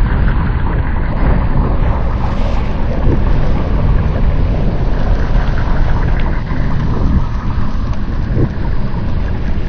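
Loud, steady low rumble of a Carl Gustaf recoilless rifle's backblast, drawn out over the slow-motion replay of the launch rather than a sharp report.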